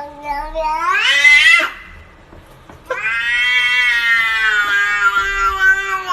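A cat giving two long, drawn-out meows: the first rises in pitch at its end, then after a short pause a second, longer call holds steady and sinks slightly in pitch.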